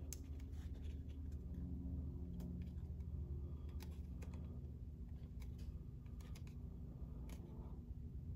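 Cardstock pieces being folded and handled by hand: scattered light ticks and paper rustles, over a steady low hum.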